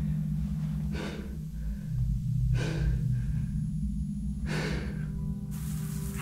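Low droning horror score under a man's heavy, tense breathing: three breaths, about one every one and a half to two seconds. Near the end a steady hiss of rain comes in.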